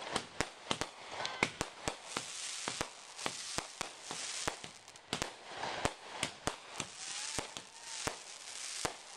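Fireworks bursting and crackling: an irregular string of sharp cracks, about three a second, over a steady hiss of sparks.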